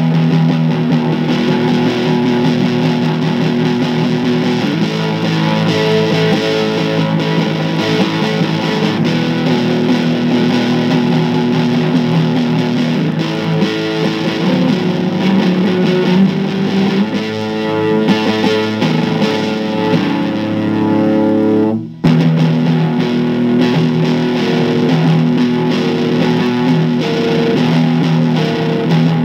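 Gibson SG electric guitar played through heavy distortion in a rock jam: sustained overdriven chords and riffs, with a brief dropout about two-thirds of the way through.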